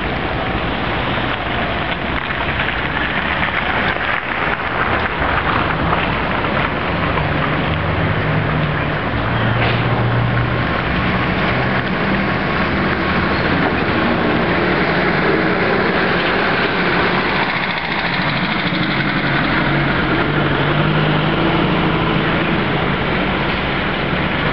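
Trolleybuses moving on a wet street: tyres hiss on the wet road over steady traffic noise. As one trolleybus passes close by through the middle, a low steady hum rises and later fades.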